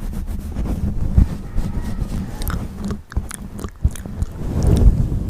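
Close-up chewing of insects eating: a dense run of crisp crunching clicks over a low rumble, with a brief break about three seconds in.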